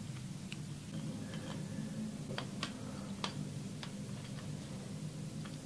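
Irregular small clicks and taps as a tool and fingers work the terminal of a plastic wall light-switch module to free a loose wire that has overheated. The clicks come over a faint low hum.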